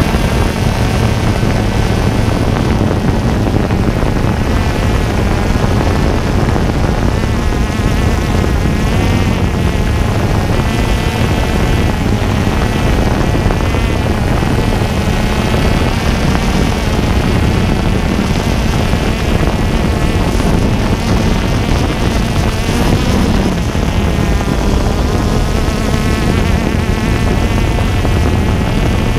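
DJI Phantom quadcopter's motors and propellers buzzing loudly at close range, heard from a camera mounted on the drone. The pitch wavers up and down throughout as the motors speed up and slow down to steer through the gates.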